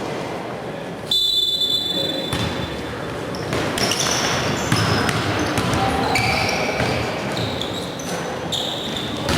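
Indoor basketball game: the ball bouncing on the hardwood court and brief high squeals scattered through, over a busy, echoing hall background with voices.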